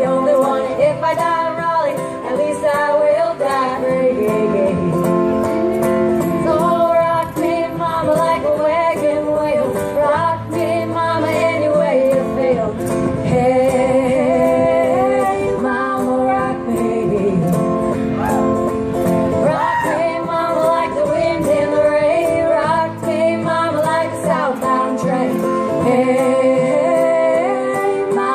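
Live acoustic guitar with female vocals, a song played through PA speakers.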